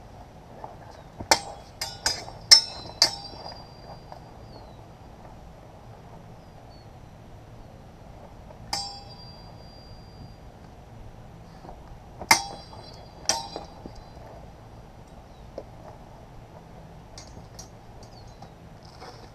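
Steel swords clashing in sparring, each hit ringing briefly. A quick flurry of about five blade strikes comes in the first few seconds, a single clash about nine seconds in, and two more strikes around twelve and thirteen seconds in.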